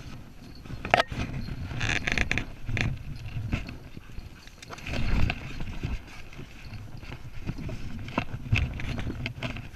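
Irregular rustling, scraping and knocking of leaves, branches and undergrowth being pushed through and brushed, in short uneven bursts with sharper knocks about a second in and near the end.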